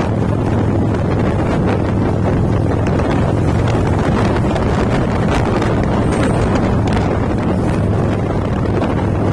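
Harley-Davidson V-twin motorcycle engine running steadily at cruising speed, heard from the rider's position, with heavy wind noise buffeting the microphone.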